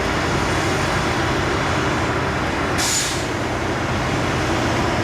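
Heavy engine running steadily, with a short sharp hiss of air brakes releasing about three seconds in.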